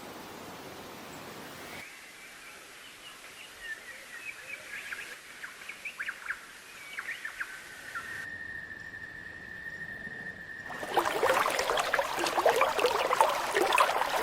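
Outdoor ambience with bird calls in several cut-together stretches: a soft hiss, then short chirps, then a steady high whistle-like tone. About eleven seconds in it gives way to a loud, dense run of rapid sharp sounds.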